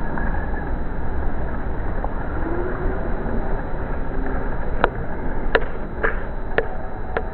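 Steady outdoor background noise with a low rumble, joined about two-thirds of the way in by a run of sharp clicks, roughly two a second.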